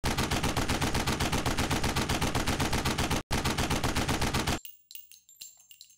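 Sustained burst of automatic gunfire as an intro sound effect, about nine shots a second, with a brief break a little past three seconds, cutting off about four and a half seconds in. A scatter of light metallic clinks with a ringing tone follows.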